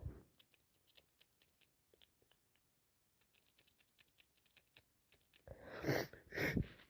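A person with a heavy head cold: faint, scattered wet clicks and sniffs for several seconds, then near the end two loud, wheezy gasping breaths, the build-up to a sneeze.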